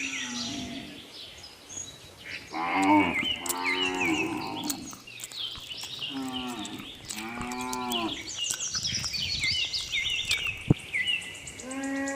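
Cows mooing: four calls in two pairs, with birds chirping throughout and a single sharp click near the end.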